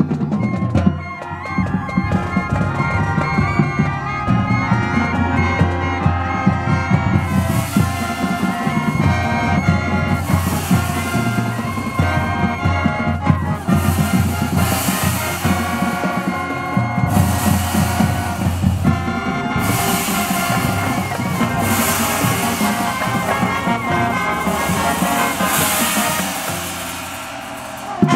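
Marching band playing its field-show music: brass and saxophones over a front-ensemble percussion section of mallet keyboards, bass drum and gong. The music grows fuller and brighter about seven seconds in and dips briefly near the end.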